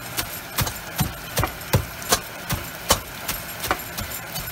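Food being pounded inside a plastic bag on a kitchen counter: steady, even thumps, about two to three a second.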